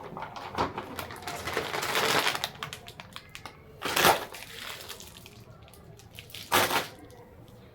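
Plastic grocery packaging crinkling and rustling as items are handled, with two louder, short rustles about four and six and a half seconds in.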